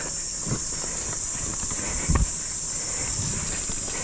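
Mountain bike ridden down a dirt forest trail: tyre and drivetrain rumble with sharp knocks as the bike hits bumps, the loudest about two seconds in, over a steady high-pitched hiss.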